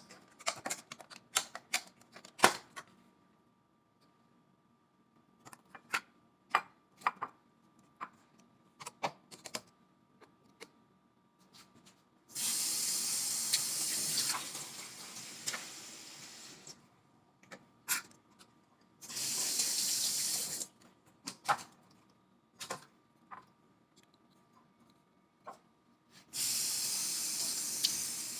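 Tap turned on and off three times, with water running into a sink for a few seconds each time. Dishes and utensils clink and clatter in between.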